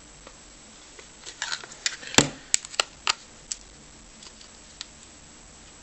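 A quick run of small clicks and knocks, the loudest about two seconds in, from handling the speaker's plastic casing and a screwdriver while working at a screw that will not come out.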